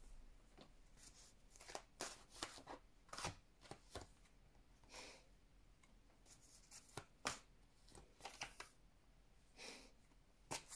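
Tarot cards being drawn from the deck and laid down on a table: faint, scattered light taps and brief slides of card stock, with quiet gaps between them.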